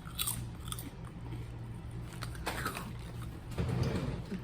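A person biting into and chewing a snack, with a few faint crisp clicks in the first second.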